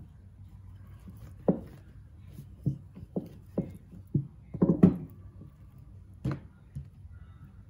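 Wooden rolling pin knocking against the counter through a silicone mat as dough is rolled out and handled: irregular knocks, the loudest a quick cluster just under five seconds in.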